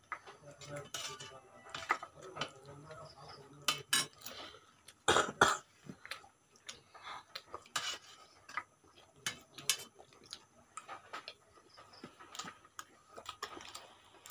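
Steel spoons clinking and scraping against a large steel dish of chicken curry in scattered sharp clinks, the loudest pair of clanks about five seconds in.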